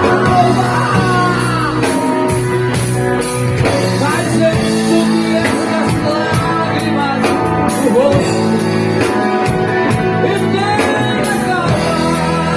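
Live band of drums, bass, electric guitars and keyboard playing an instrumental passage of a Christian rock song. A melodic lead line with bending, gliding notes plays over a steady low accompaniment.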